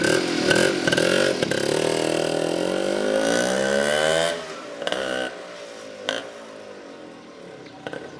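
Loud motorcycle engine, its pitch falling over several seconds, then dropping away to a quieter background about four seconds in. A couple of short knocks follow.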